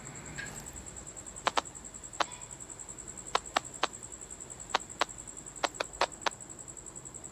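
About a dozen sharp, irregular clicks or taps, some in quick pairs, over a faint steady high-pitched whine.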